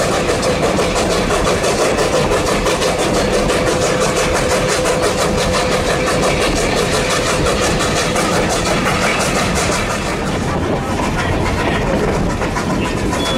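Durango & Silverton narrow-gauge steam train running, the locomotive working with a quick, even beat over the wheel and carriage noise. A steady tone sounds over it for the first half and fades about seven seconds in.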